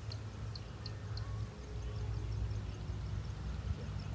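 Low steady rumble of outdoor noise, with a small bird's short high chirps repeating through it.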